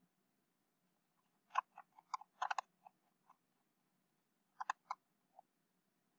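Faint, scattered clicks of a computer mouse: a run of several between about one and a half and three seconds in, then three more close together near five seconds.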